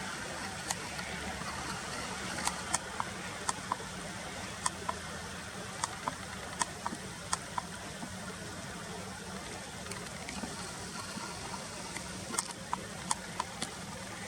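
Eastern spot-billed duck calling: a scattered series of very short, sharp, clicky notes, some in quick pairs or threes, over steady running-water and traffic noise.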